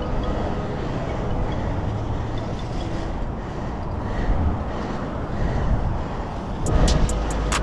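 Steady rumble of road traffic and wind noise heard from a bicycle riding among cars, with a run of sharp clicks near the end.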